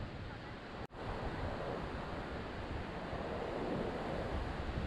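Ocean surf breaking along the beach, with wind buffeting the microphone; the sound drops out for an instant about a second in.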